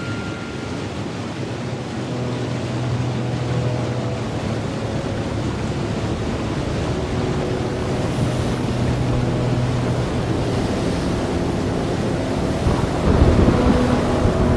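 Instrumental passage of a song: a dense hissing wash like surf or wind, with held low notes underneath, swelling near the end.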